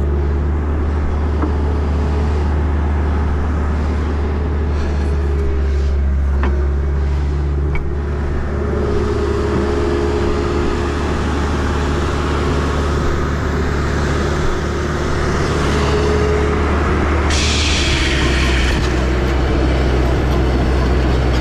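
Excavator's diesel engine running at a steady speed. About seventeen seconds in there is a brief hiss lasting a second or two.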